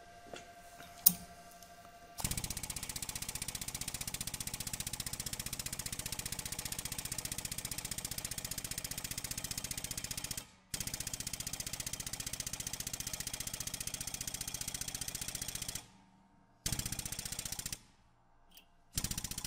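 Powered shop press's pump running with a fast, even pulsing as the ram is driven down onto a bolt used as a punch, pressing a bearing out. It cuts out briefly near the middle, stops and restarts twice near the end, and a sharp click comes about a second in, before it starts.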